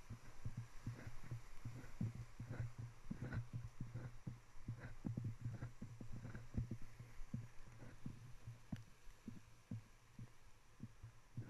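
Muffled thumps of a runner's footfalls and the jolting of the camera he carries, about three a second, over a low steady hum.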